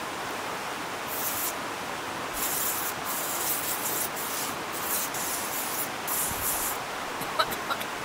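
Aerosol can of insect repellent sprayed in several short hissing bursts over the steady rush of a river. A few small ticks come near the end.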